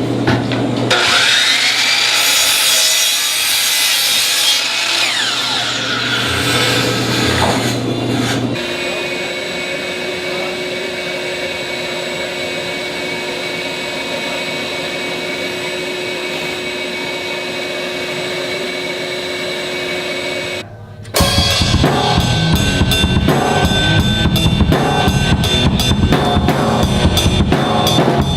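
A run of loud example noises. For about eight seconds there is a harsh, hissy noise with sweeping tones. Then a steady drone with held tones lasts about twelve seconds. After a brief drop, rapid percussive strokes like a drum kit being played fill the last seven seconds.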